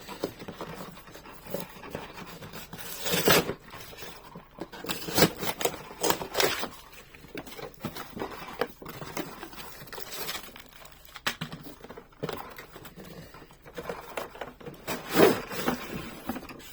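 Cardboard-and-plastic toy packaging being worked open by hand: irregular scrapes, rubs and rustles, with louder scrapes about three seconds in and near the end.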